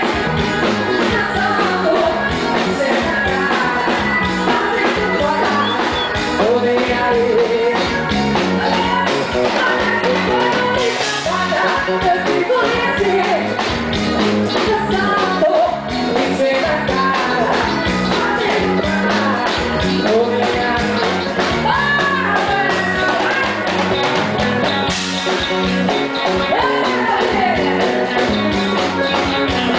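A forró band playing with a singer over a steady, busy beat.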